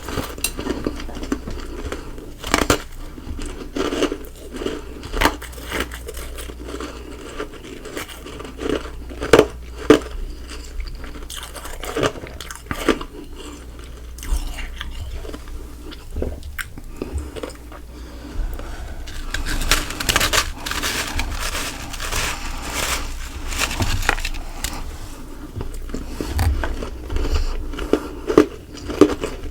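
Ice being bitten and chewed close to the microphone: irregular sharp crunches and snaps, with a denser run of grinding chews about two-thirds of the way through.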